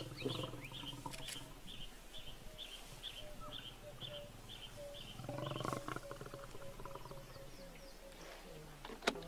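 Lions growling low, the loudest rumble about five seconds in, over a steady run of high chirps about two a second; a sharp click near the end.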